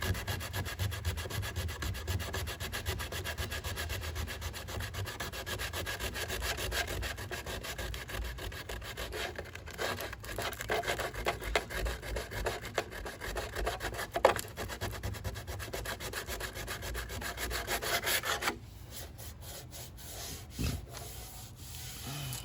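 Sandpaper scratching over cured Bondo body filler on a car body panel, knocking down filler built up in a body crease; a continuous rasping rub that stops suddenly near the end.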